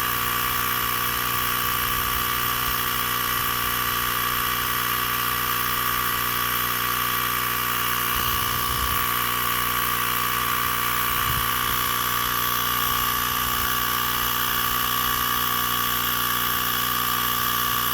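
Small electric air compressor running steadily with an even, high-pitched hum, pumping air into a punctured tire.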